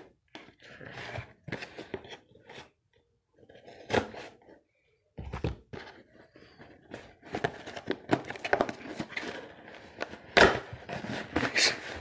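Cardboard shipping box being opened by hand: irregular crackling, scraping and tearing of tape and cardboard, busier and louder in the second half. There is a sharp snap about four seconds in and a louder one about ten seconds in.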